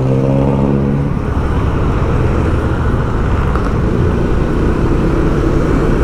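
Steady road traffic noise from vehicles on a busy city road, with a steady low droning tone in the first second that then stops.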